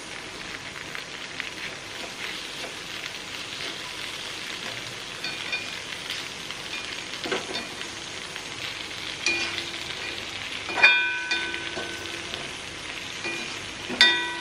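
Onions and boiled eggs sizzling in a frying pan while a flat metal spatula stirs and scrapes through them. In the second half come a few sharp metal clinks of the spatula against the pan that ring briefly, the loudest about eleven seconds in.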